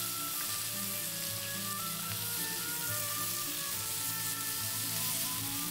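Chicken and lamb fat sizzling steadily on a heated stone slab, under background music with held notes.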